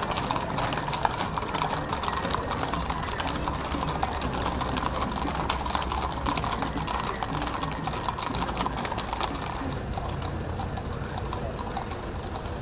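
Shod hooves of a column of cavalry horses clattering on the road at a walk, a dense overlapping run of clicks that thins out in the last couple of seconds.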